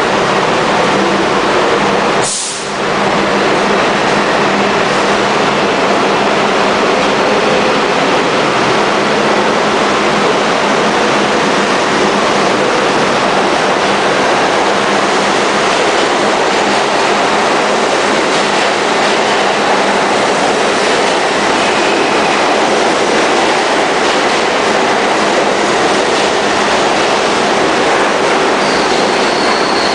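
R40 slant subway cars pulling out of a station, a loud steady rush of wheels on rail and running gear. A sharp crack comes about two seconds in, and a high wheel squeal near the end.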